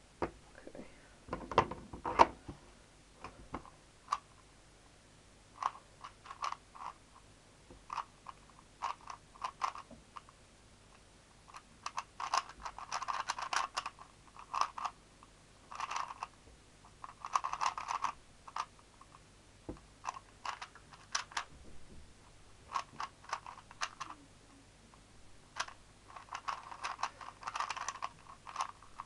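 Rubik's speed cube being turned by hand: quick runs of clicking plastic layer turns in bursts, with short pauses between, as it is scrambled and solved. A louder knock comes about two seconds in.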